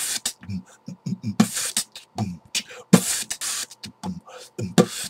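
A person beatboxing: quick low mouth kick-drum sounds mixed with clicks and a few longer hissing snare sounds, about two seconds in and again about a second later.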